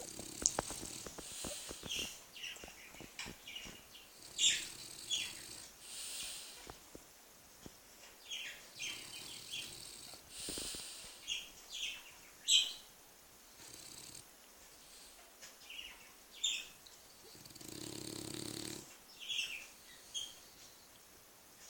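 Bulldog snoring while asleep on its back: slow, drawn-out snore breaths, one at the start and a longer one late on. Short high chirps come throughout and are the loudest sounds.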